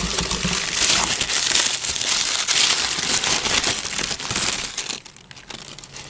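Crumpled brown packing paper crinkling and rustling as it is pulled out of a cardboard box, going quieter about five seconds in.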